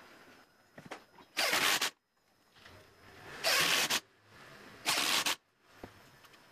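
Cordless drill run in three short bursts of about half a second each, a second or so apart.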